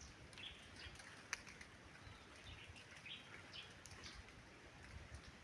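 Faint bird calls: many short, high chirps repeating irregularly, with one sharp click about a second in.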